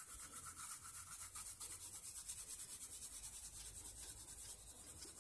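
Pencil shading on paper: quick, even back-and-forth hatching strokes scratching and rubbing, about five strokes a second.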